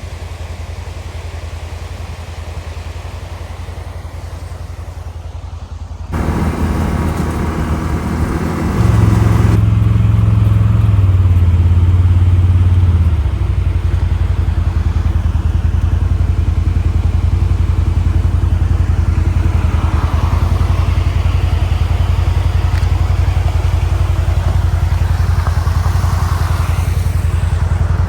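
CFMoto ATV engine running: a steady low drone, stepping up in loudness about six seconds in and again a few seconds later, then running steadily.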